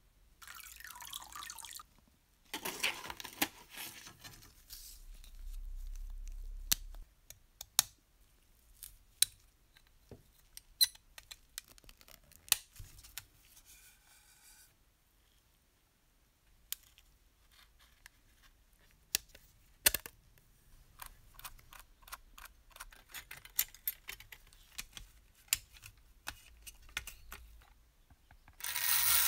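Liquid poured into a tray near the start, then scattered small clicks and taps of tinplate model parts being handled and fitted. Near the end comes a short loud hiss of spray lubricant onto the model's clockwork motor.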